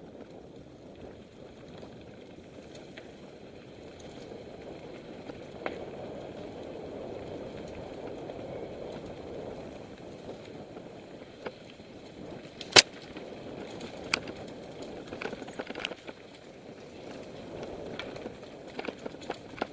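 Mountain bike riding over a dirt and rocky singletrack: a steady rumble of tyres and moving air, with scattered sharp clicks and knocks as the bike rattles over rocks. The loudest knock is about thirteen seconds in, and the clicks come thicker near the end.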